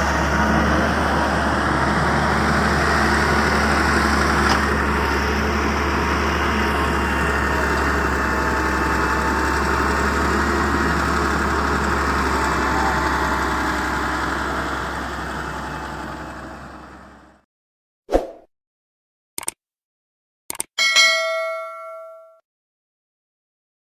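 Heavy machinery engine running steadily, fading out about three-quarters of the way through. Then a few short pops and a bell-like chime that rings for about a second and a half.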